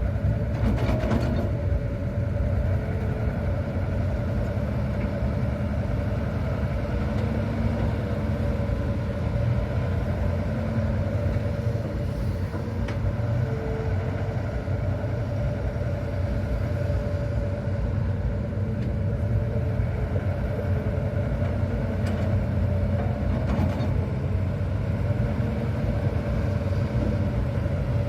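Hitachi ZX200-5G excavator's four-cylinder diesel engine running steadily at working revs, with a few faint knocks near the start and about three-quarters of the way through.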